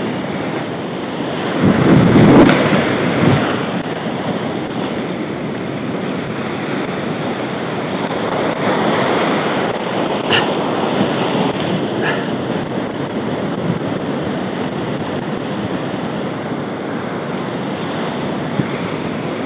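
Surf breaking and washing over shore rocks, with wind buffeting the microphone. A louder rush comes about two seconds in, then the surf goes on steadily.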